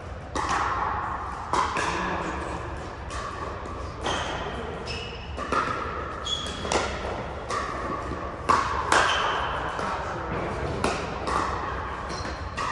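Pickleball paddles striking a plastic pickleball: a string of sharp pops at irregular intervals, each echoing in a large indoor hall, with hits from neighbouring courts mixed in.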